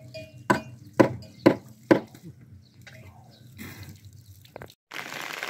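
Four sharp knocks about half a second apart, then a fainter one near the end.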